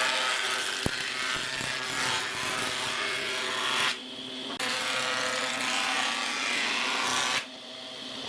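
A power tool working wood, running steadily with a motor whine; the sound cuts off abruptly about four seconds in, resumes half a second later, and drops again near the end.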